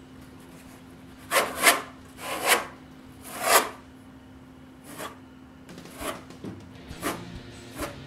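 Trowel scraping as mastic adhesive is spread along a wall corner: four strong strokes in the first few seconds, then lighter, shorter scrapes.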